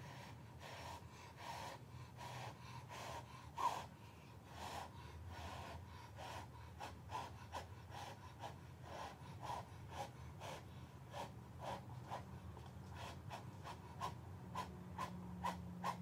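A person blowing short, repeated puffs of breath onto wet acrylic pour paint to push the white into foamy lacing, about two puffs a second and quickening toward the end.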